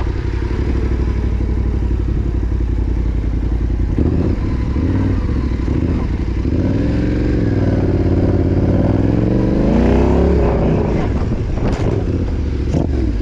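Yamaha Ténéré 700's parallel-twin engine running steadily, then from about four seconds in its revs rise and fall several times under the throttle. Two sharp knocks come near the end.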